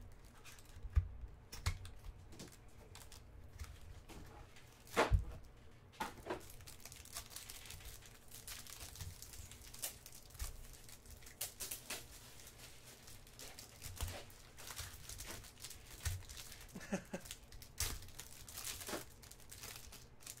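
A few knocks and clicks as a small cardboard card box is handled and opened, the loudest about five seconds in. Then, from about six seconds in, clear plastic wrap is torn and crinkled by hand as it is pulled off a pack of trading cards.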